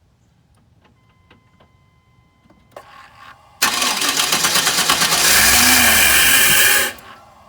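Chevrolet Silverado 2500 pickup's starter cranking the engine for about three seconds, then stopping, without the engine starting: the crank-no-start fault, here with the mass airflow sensor unplugged. A few faint clicks come before the cranking.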